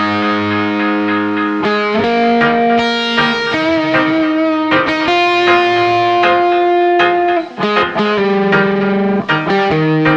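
Instrumental break of a song with no singing: an electric guitar with effects plays a lead melody of long held notes, changing pitch every second or two.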